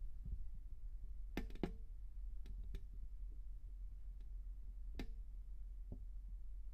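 Faint scattered clicks, two quick pairs and then two single ones, over a low steady hum.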